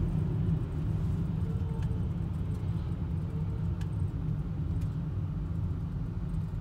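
Car cabin noise while driving: a steady low rumble of engine and road noise heard from inside the car.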